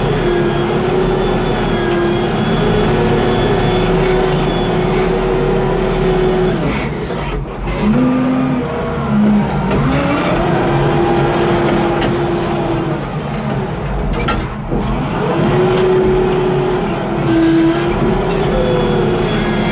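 Case W20E wheel loader's diesel engine running under load while the bucket pushes and carries soil. Its engine note sags and picks up again twice.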